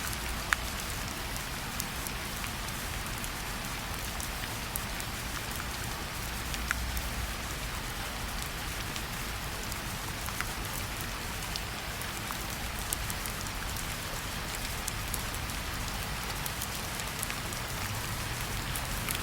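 Steady rainfall with individual drops ticking close by now and then, over a faint low rumble.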